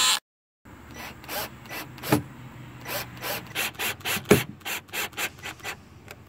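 Cordless drill-driver driving small screws through a metal plaque into a pine picnic-table rail: a string of short scraping clicks, two or three a second, with two louder ones. It opens with a brief loud burst that cuts off sharply.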